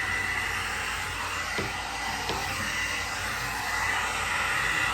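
Electric hot-air rotating hair brush running on its low heat setting: a steady airy blowing hiss with a thin constant whine from its fan motor, and a couple of faint ticks a little past one and two seconds in.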